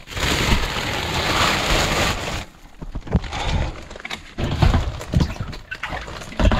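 Black plastic sheeting over a cold-water storage tank rustling and crinkling as it is handled, for about the first two and a half seconds, then scattered knocks and bumps of someone shifting about among the loft timbers.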